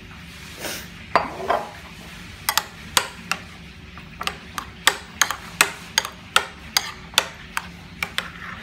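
Metal spoon clinking against a ceramic bowl while stirring ketchup into mayonnaise: a run of sharp taps, about two or three a second, after a brief soft hiss about half a second in.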